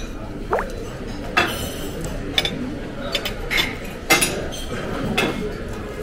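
Cutlery and dishes clinking on a table: about five sharp clinks with short ringing, the loudest about four seconds in, over a steady background murmur.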